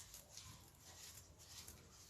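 Faint, irregular scraping and rustling of a spoon stirring crushed biscuit crumbs into melted butter in a bowl.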